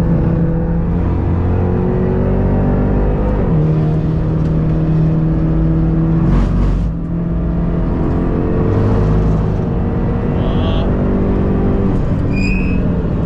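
Hyundai Elantra N track car's 2.0-litre turbocharged four-cylinder engine pulling hard on track, heard from inside the cabin. The pitch climbs through the gears, falls back sharply at an upshift about three and a half seconds in and again near the end, and dips briefly around seven seconds in.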